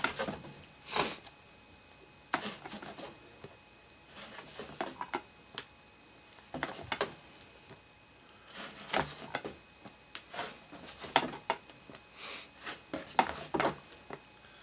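Plastic golf discs being handled and stacked: irregular clacks, taps and brief rustles with pauses between them.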